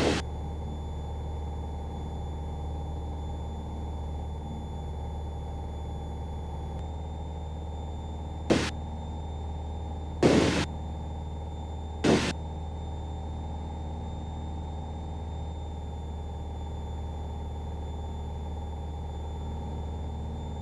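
Piper PA-28's piston engine droning steadily in cruise, heard inside the cabin. Four short, loud bursts of noise break over it, one at the start and three between about eight and twelve seconds in.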